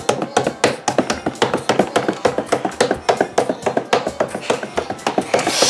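Rapid, even knocking, about seven strikes a second.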